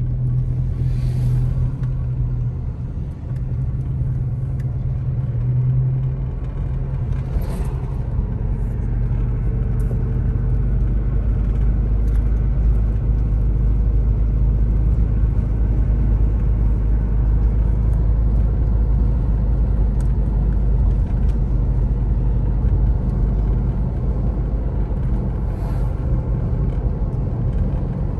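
Road noise inside a car being driven: a steady low rumble of tyres and engine, growing a little heavier and deeper about eight seconds in, with a few brief whooshes.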